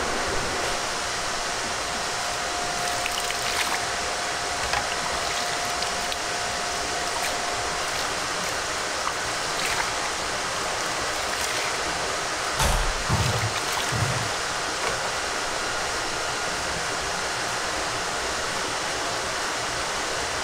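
Steady rushing background noise of a commercial kitchen, with a faint steady tone over roughly the first eight seconds and a few low thumps about two-thirds of the way through.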